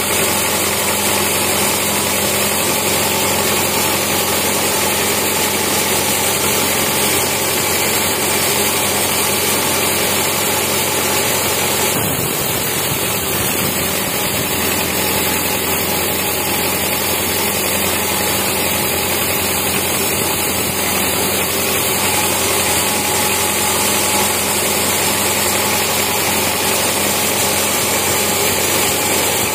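Large sawmill band saw running steadily while its blade rips lengthwise through a teak log, a loud continuous machine noise.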